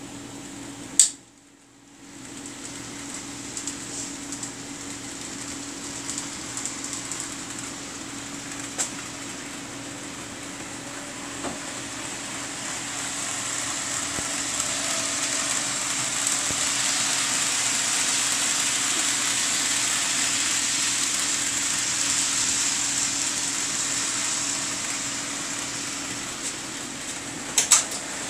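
HO scale model train running around the layout's track, a steady hiss of motor and wheels on rail that swells gradually to its loudest in the middle and eases off again. A sharp click sounds about a second in and a couple more near the end.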